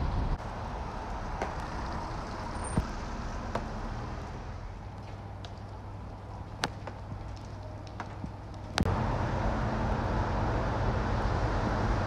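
City street ambience with steady, distant road traffic, broken by a few sharp ticks. The background changes abruptly about a third of a second in and again near nine seconds, where it jumps louder with a low hum.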